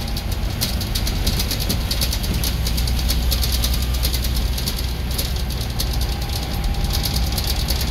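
Scania N94UB single-decker bus running under way, heard from inside the passenger saloon: a steady low engine drone with a fast light rattling over it.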